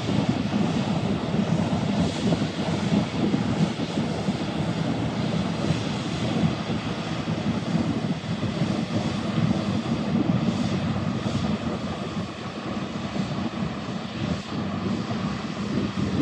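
John Deere combine harvester running steadily in the field, a constant heavy diesel drone.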